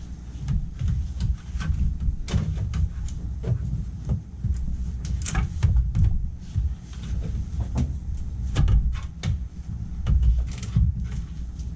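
Irregular knocks, bumps and scraping as a plastic humidifier housing is worked into the cut opening of a sheet-metal furnace plenum, over a heavy low rumble.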